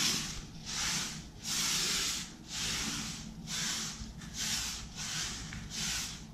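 Bristles of a 1-inch square polyester paintbrush (Zibra PB100LZS) brushing paint onto a ceiling: about eight back-and-forth rubbing strokes, each about half a second long.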